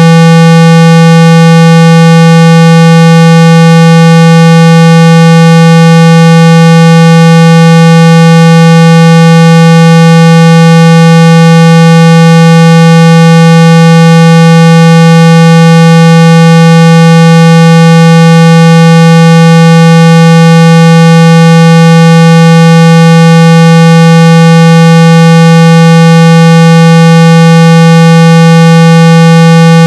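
Steady 165 Hz low tone at full volume, unchanging, with many overtones stacked above it: a speaker-cleaning test tone played to shake dust and water out of a phone speaker.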